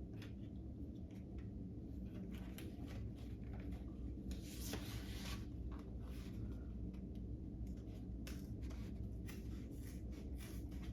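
Hands opening packaging: scattered rustles, scrapes and small clicks, with a longer scraping rustle about four seconds in, over a steady low hum.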